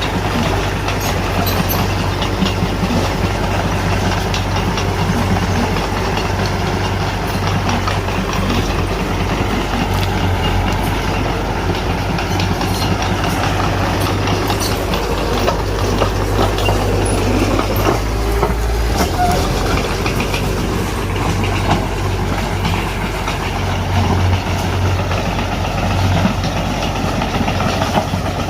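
Mitsubishi BD2F crawler bulldozer's diesel engine running under load, with the steady clatter of its steel tracks as it pushes soil.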